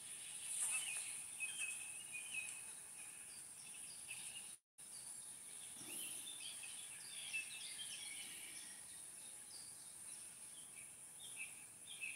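Faint outdoor ambience: small birds chirping in short, scattered calls over a steady high-pitched hiss. The sound cuts out completely for a moment about four and a half seconds in.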